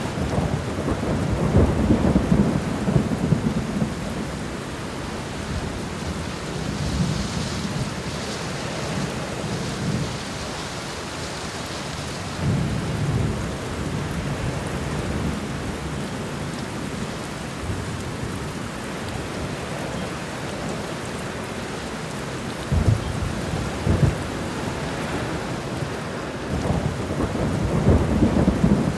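Steady heavy rain with thunder rumbling and rolling several times, the rumbles swelling again near the end.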